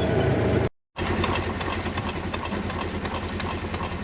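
Vehicle engine running steadily, with a brief cut to silence under a second in, after which the engine carries on with an even low rumble.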